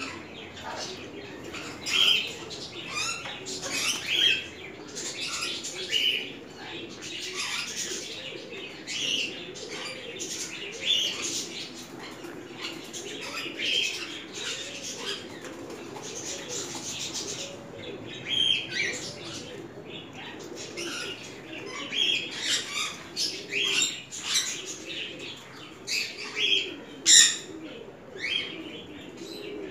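Aviary of cockatiels and lovebirds calling: many short, sharp chirps and squawks over a low, wavering coo, with wings fluttering now and then.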